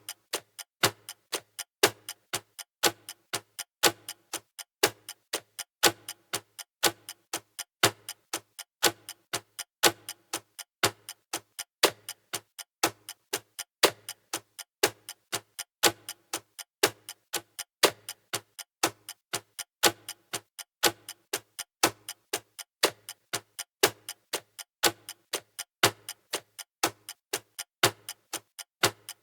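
Clock ticking steadily at about two ticks a second, the ticks alternating louder and softer in a tick-tock pattern.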